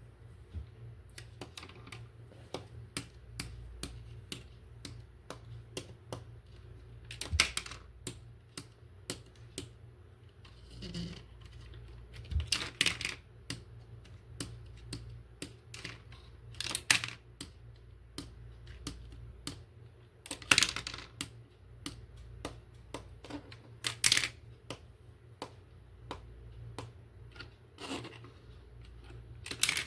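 Hands handling a plastic toy and its packaging: a run of small plastic clicks, with a louder crackle every few seconds.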